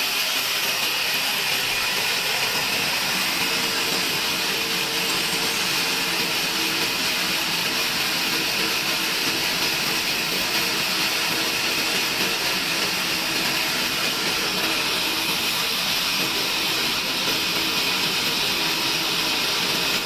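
Sawmill bandsaw running and cutting through a log: a steady hissing saw noise with a faint hum beneath it.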